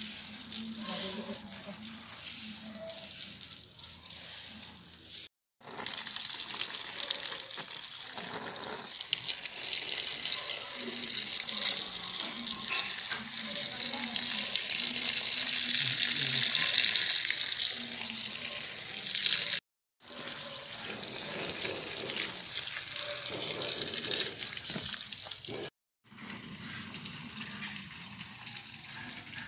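Garden hose spraying water onto plants and leaves to wash off volcanic ash: a steady hiss of spray, softer for the first few seconds, then much louder. It cuts off abruptly three times.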